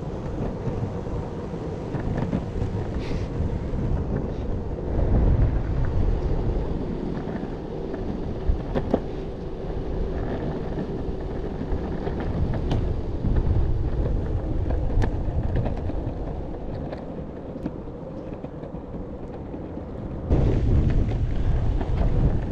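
Wind buffeting the microphone over the rumble of an electric skateboard's rubber wheels rolling on cracked asphalt, with a few sharp clicks. It surges louder about five seconds in and again near the end.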